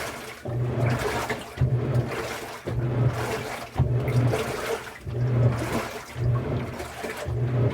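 Washing machine running with water in the drum: a motor hum and a watery swish surge and fade about once a second as the drum turns.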